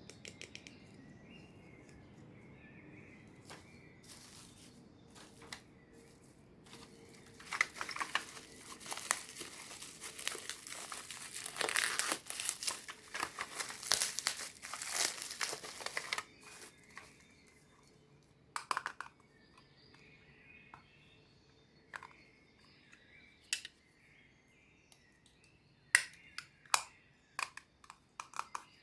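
Toy packaging crinkling and tearing as a miniature toy set is unwrapped, densest for several seconds in the middle, followed by a few sharp separate clicks of small toy pieces being handled.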